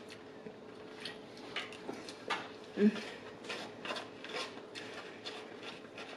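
Close-miked eating sounds: irregular wet mouth clicks from chewing, mixed with light taps of cutlery on a dish. About three seconds in comes a brief low vocal sound, the loudest moment.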